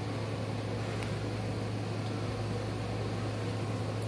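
Steady low hum with an even hiss underneath, unchanging throughout, with one faint click about a second in.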